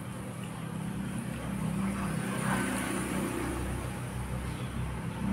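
A low, steady motor hum that grows louder from about a second in.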